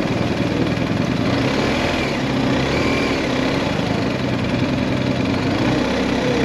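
BMW GS Adventure motorcycle engine running at a steady cruising pace, with wind rush over the microphone behind the windscreen.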